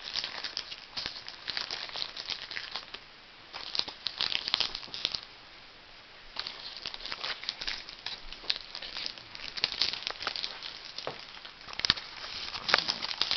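Trading-card pack wrapper crinkling and tearing as it is opened and handled by hand, in irregular crackly bursts with a short lull about five seconds in.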